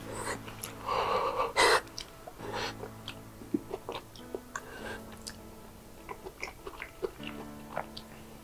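Close-up mouth sounds of eating spoonable pizza with stringy melted mozzarella: a loud slurp about a second in, then wet chewing with many small mouth clicks.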